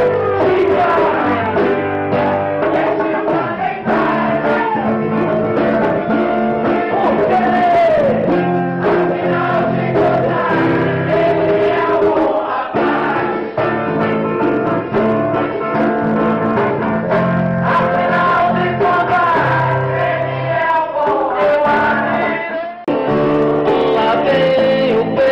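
Music: a song with singing voices over instrumental backing and steady low bass notes.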